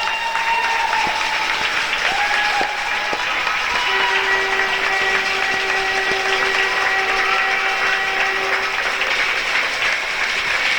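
Arena crowd clapping and cheering at the end of a hockey game, with horns sounding. Two short blasts drop in pitch as they die away, then a long steady low horn runs from about four to nine seconds in.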